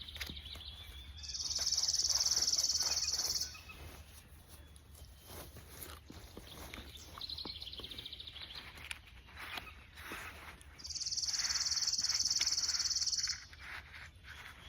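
A songbird singing a high, dry trill of about two seconds, twice, about nine seconds apart, with a fainter, lower trill between them. Small clicks and a steady low rumble sit underneath.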